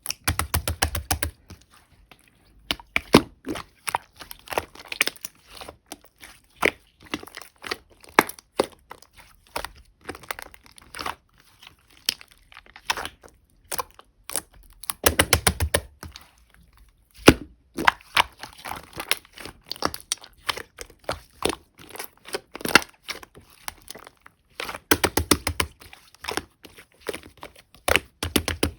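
Light pink and yellow slime with clay toppings being mixed and pressed by hand, giving a constant run of sticky clicks and pops. There are dense bursts of rapid popping right at the start, about halfway through and again near the end.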